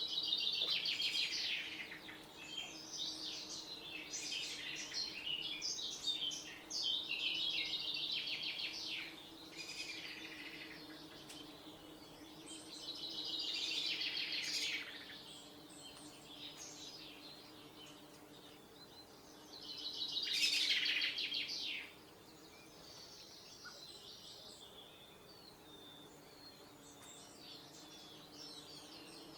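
A songbird singing in the wild: high, rapidly trilled song phrases a second or several seconds long, repeated with pauses. The phrases are loudest in the first third and again about two-thirds of the way through, with softer chirps near the end.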